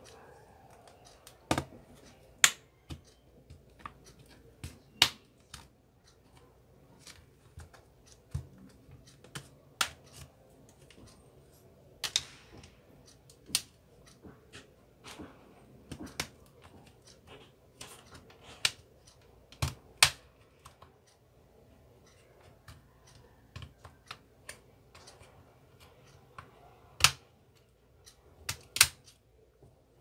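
Plastic retaining clips of a Lenovo A5500-HV tablet's back cover snapping loose as an opening tool is worked around the edge: sharp, irregular clicks, one every second or two.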